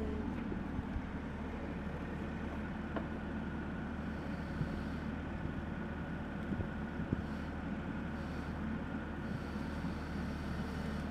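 Excavator engine running steadily, an even low hum.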